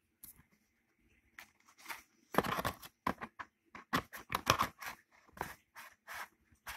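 Plastic DVD cases clacking together and scraping against a cardboard box set as they are handled and pushed back into it: a string of sharp clicks and knocks, with a longer scraping rustle about two and a half seconds in.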